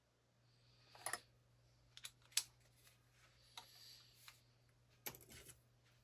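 A few sharp, light clicks and clatters of small hard parts or tools being handled, in scattered bursts, with the loudest around a second in, near two and a half seconds and at five seconds.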